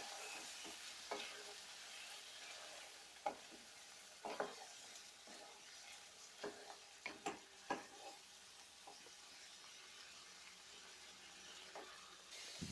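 Chicken in spinach gravy sizzling faintly in a pan while it is stirred, with irregular light scrapes and taps of the spatula against the pan.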